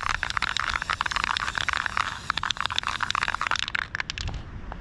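Aerosol spray can of black guide coat hissing in short spurts, with a brief break about two seconds in. The spraying stops about four seconds in.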